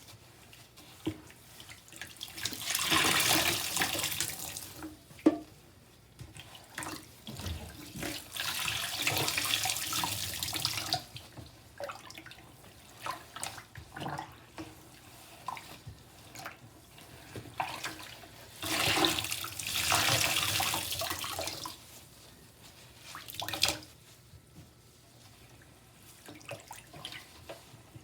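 Soaked sponges squeezed out: water gushes out three times, each gush lasting a couple of seconds, with drips and small splashes in between.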